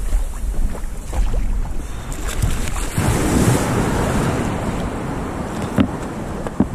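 Sea water washing and splashing around a kayak, with wind rumbling on the microphone. A louder surge of water comes about halfway through, and two sharp knocks come near the end.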